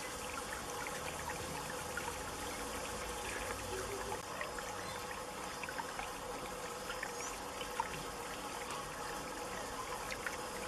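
Water trickling and pouring steadily from a Buddha fountain, with many small splashes and drips throughout.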